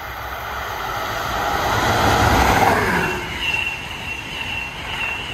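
Electric train passing at high speed: the rushing noise builds to a peak about two and a half seconds in, with a falling pitch as it goes by, then a steady high whine over the fading rumble.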